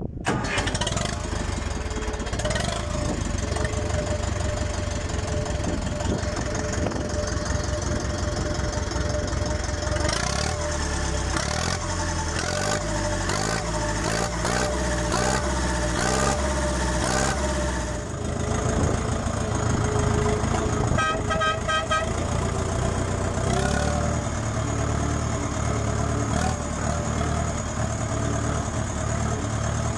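Ursus C-355 tractor's diesel engine running steadily through a stainless-steel Suprowski exhaust muffler on a vertical stack, while the tractor drives along. About twenty-one seconds in there is a brief run of high repeated beeps.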